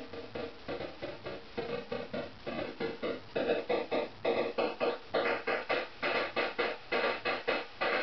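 Barton Musical Circuits DDN 8-bit digital percussion module firing short, decaying bursts of digital noise in a steady rhythm, about four hits a second. Its knob is set to control the noise's frequency, and the hits get louder about three seconds in.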